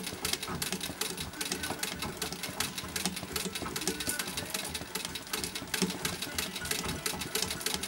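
Vintage straight-stitch treadle sewing machine stitching, its needle mechanism clattering in a rapid, even rhythm.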